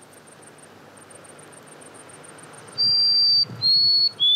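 White-throated sparrow singing, starting about three seconds in: a long clear high whistle, a slightly lower one, then a run of quicker repeated whistled notes lower still. Before the song there is only a faint, fast, high ticking, about eight ticks a second.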